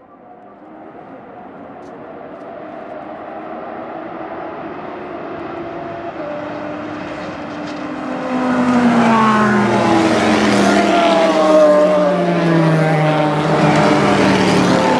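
Racing cars approaching from afar, the engine noise building steadily, then getting suddenly louder about eight seconds in as a group of race cars at full throttle comes close. Several overlapping engine notes slide down and up in pitch.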